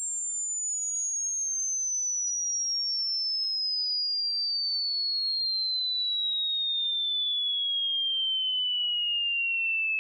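Electronic sine-wave test tone of a hearing test, one pure tone sweeping steadily down in pitch from a high whistle to a lower one.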